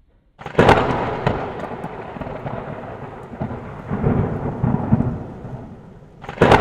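Thunder sound effect: a sharp thunderclap about half a second in, rumbling on and slowly fading, then a second crack near the end.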